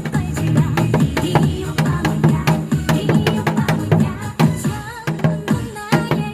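A trot dance track with a techno-style beat plays, with janggu drum strokes struck along to it in quick, sharp hits.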